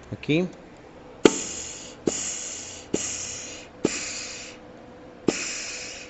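Short blasts of compressed air into a Chrysler 42RLE transmission's clutch passages, five in a row about a second apart with a longer gap before the last. Each blast opens with a sharp clack and hisses off over about half a second. It is an air test that the clutch piston applies and its rubber seals hold.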